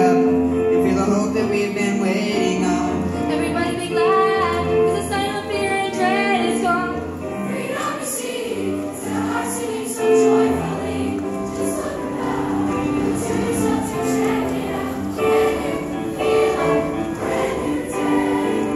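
Middle school show choir of mixed voices singing in harmony over instrumental accompaniment; a regular beat with high ticks joins about eight seconds in.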